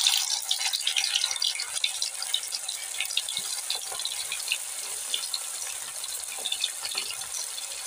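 Potato kofta balls dropped one by one into hot oil in a steel kadhai, the oil sizzling and crackling with many small pops, loudest in the first second or two.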